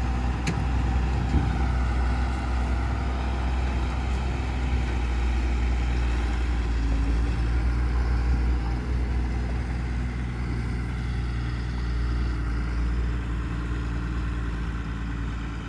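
Tata tipper truck's diesel engine running steadily with a low drone.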